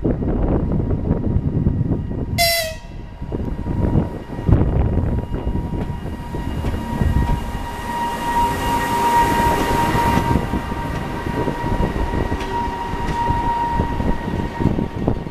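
EP2K electric locomotive hauling a passenger train away from a station, with a steady low rumble of the moving train. A short, high horn blast comes about two seconds in, and a steady high whine joins the rumble from about six seconds in.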